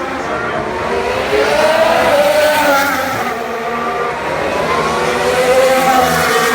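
Formula 1 V6 turbo-hybrid engines running on the circuit, the engine note rising and falling as the cars accelerate and brake.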